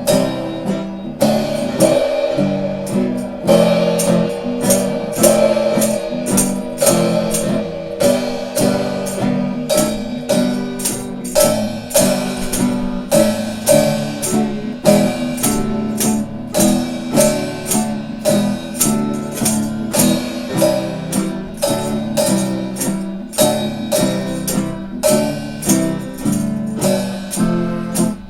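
Music: a strummed guitar playing with a steady beat.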